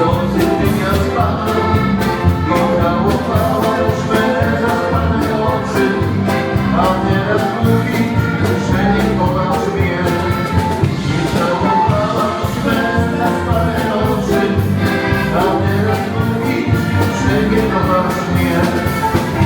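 Polish folk dance band music: a sung melody over a steady, even dance beat.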